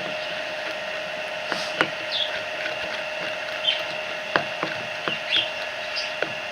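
Slime being mixed and squeezed by hand, giving scattered short sticky clicks and squelches, with brief high bird chirps now and then over a steady background hum.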